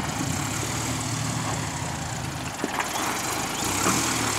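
A 1987 Toyota 4Runner's engine running steadily at low revs as the truck crawls down over rocks, with a few faint knocks in the second half.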